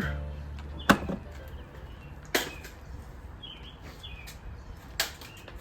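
Three single shots from a Glock 45 9mm pistol, the first the loudest, spaced about a second and a half and then about two and a half seconds apart.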